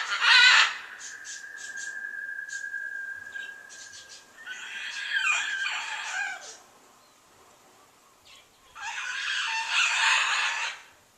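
A large pet bird calling loudly over and over: harsh calls at the start, a thin steady whistle-like tone for a few seconds, then two long calls of about two seconds each, one near the middle and one near the end.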